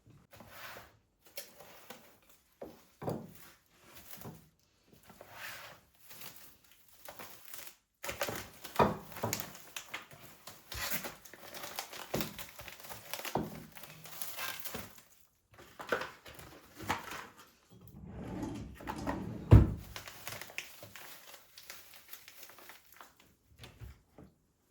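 Household handling sounds: crinkling of packaging and a string of light clicks, taps and knocks as objects are handled and set down, with one heavier thump a little after the middle.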